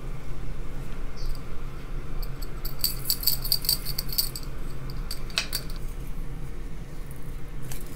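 Toasted white sesame seeds rattling in a small glass shaker jar as it is shaken over a bowl for about two seconds, followed a second later by a single light clink.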